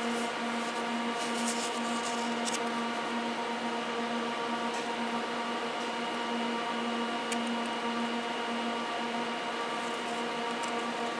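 Steady hum inside a regional passenger train carriage: an unchanging machine drone holding one constant pitch with overtones over a soft hiss, with a few faint clicks.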